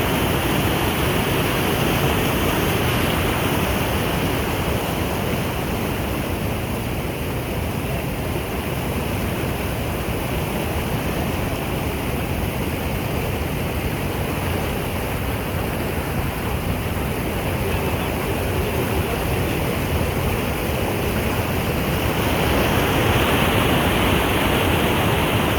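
Flowing water rushing steadily, like a stream or small waterfall, swelling slightly near the end.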